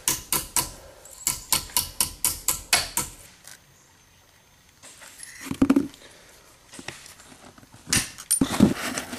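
A hammer strikes a small copper strip on a wooden block about a dozen times in quick succession, roughly four blows a second, for the first three seconds. After a pause come two short clattering bursts as tin snips cut the copper strip.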